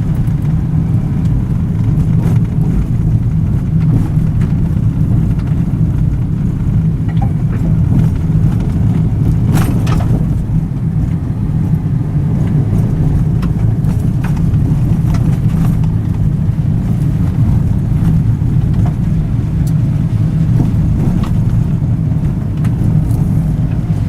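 A loud, steady low rumble, even and unbroken.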